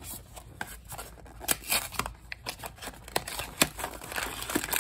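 Small cardboard blind box being handled and its flaps pried open by hand: a string of sharp paperboard clicks, scrapes and rustles.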